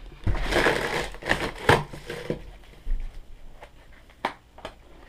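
Cardboard box and packing material rustling and crunching as they are handled, followed by a few separate sharp knocks.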